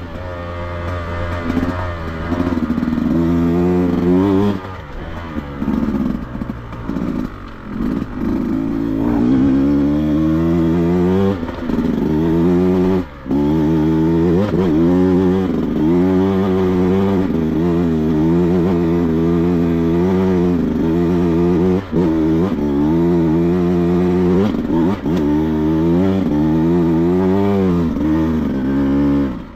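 Dirt bike engine being ridden along a rough trail, revving up and falling back again and again every second or two as the throttle is worked, with a couple of brief cuts where the throttle is shut.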